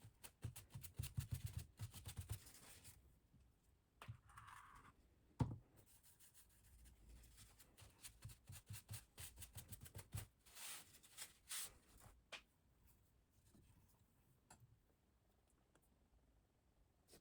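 Silicon carbide oil stone scraping along a knife edge in quick back-and-forth strokes, in two quiet bursts, with a single sharp knock about five seconds in.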